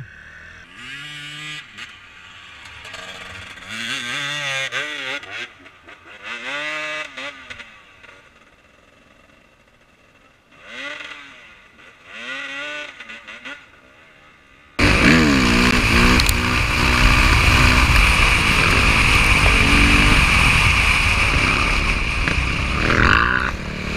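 Enduro motorcycle engines revving up and down again and again, each rev a quick rising and falling pitch. About fifteen seconds in, the sound jumps suddenly to a much louder, steady engine noise held at high revs, easing off near the end.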